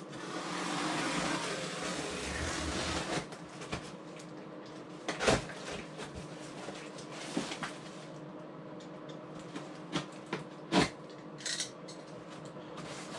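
Cardboard packaging rustling and scraping as a flatpack box is opened, then a few sharp knocks and clatters as the boxed parts are handled. The loudest knocks come about five and eleven seconds in.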